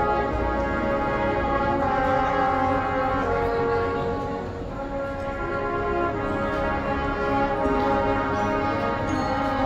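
High school marching band playing long held chords, with the harmony shifting slowly through several sustained notes.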